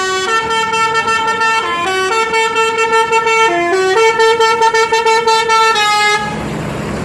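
Basuri telolet musical air horn on a tour bus playing a tune of stepped notes, some held and some in quick fluttering runs, stopping abruptly about six seconds in, leaving the bus engine running.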